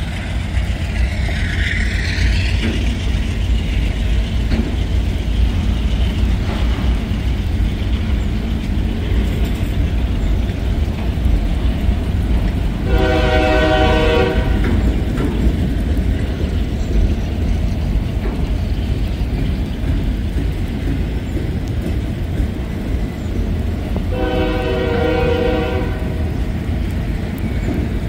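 Freight locomotive's air horn sounding two long blasts about eleven seconds apart, several notes at once, over the steady low rumble of a slow-moving train.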